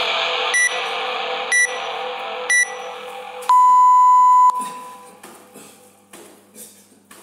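Workout interval timer counting down the end of a round: three short beeps about a second apart, then one long, lower beep of about a second that marks the start of the next round. Background music fades out under it.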